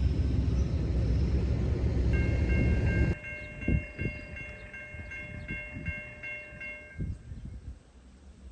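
A passing train rumbling loudly, cutting off abruptly about three seconds in. A train horn chord sounds from about two seconds in and stops about seven seconds in.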